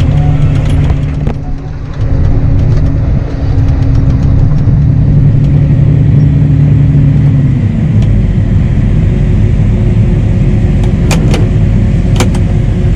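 Heavy diesel engine of harvest machinery running steadily, loud and close; its steady hum drops away about seven and a half seconds in and gives way to a rougher rumble. A few sharp clicks sound near the end.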